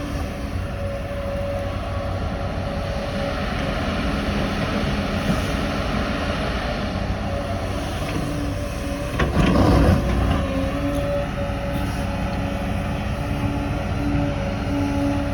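LiuGong 922E excavator running, a steady machine drone with a whine that comes and goes. Just after the middle, a louder rough surge lasts about a second before it settles back.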